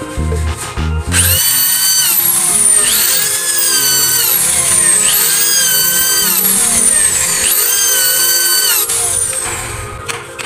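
Power drill running in four short bursts, each spinning up quickly, holding its pitch, then winding down as the trigger is released, as when driving screws.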